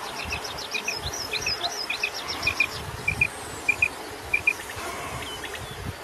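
Common quail singing: sharp, clipped notes in quick pairs, repeated about every half second and stopping about three-quarters of the way through. A faster run of higher, thinner notes sounds with it for the first half.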